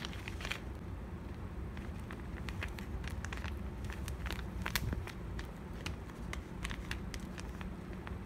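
Paper cutouts being handled: crinkling and rustling paper with many small, sharp clicks and taps scattered through, over a steady low hum.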